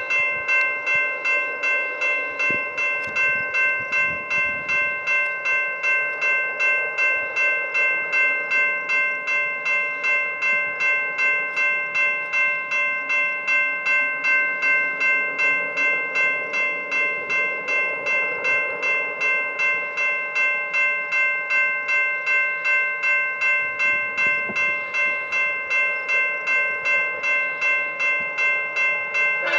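Railroad grade-crossing warning bell ringing steadily at about two strokes a second, each stroke the same ringing tone at an even level, sounding for an approaching train.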